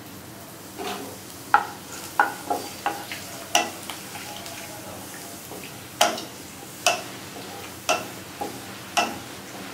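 A wooden spatula stirring cumin seeds in hot mustard oil in a nonstick kadai, knocking and scraping against the pan about a dozen times at uneven intervals. Under it the oil sizzles faintly and steadily.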